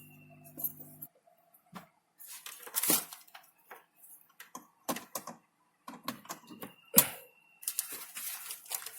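Irregular clicks, knocks and light clatter of a laptop and small hard parts being handled. A low hum stops about a second in.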